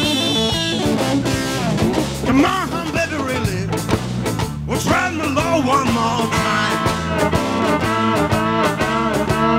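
Live rock music: electric guitar with a violin, the melody line wavering with vibrato over a steady backing.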